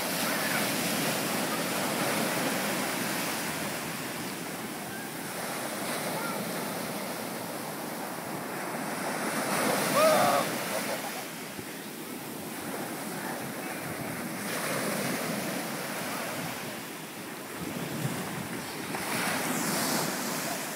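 Ocean surf breaking and washing up a sandy beach, swelling and easing in waves, with wind buffeting the microphone. A brief high voice calls out about halfway through.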